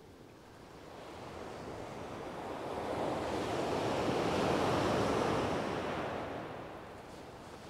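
Sea surf breaking on a shingle beach: a wave rolls in, the rush of water swelling to its loudest about halfway through and then ebbing away.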